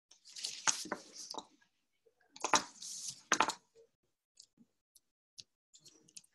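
Two short bursts of rustling with sharp clicks close to the microphone, about two seconds apart, then a few faint ticks: handling noise from movement at a desk.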